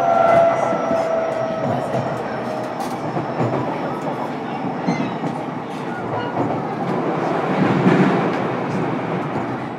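JR East E233-series electric train running, heard from inside a motor car: steady wheel and rail noise. A faint whine sinks slightly and fades over the first two seconds, and the rumble swells about eight seconds in.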